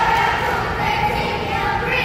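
A group of young girls chanting a cheer together in drawn-out, sing-song notes, echoing in a gym.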